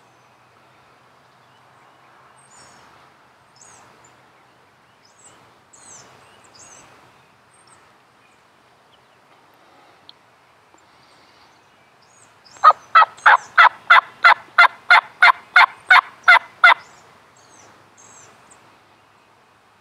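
A long run of loud, evenly spaced wild turkey calls, about fourteen notes at roughly three a second over some four seconds, starting about two-thirds of the way in. Faint songbird chirps come before and after.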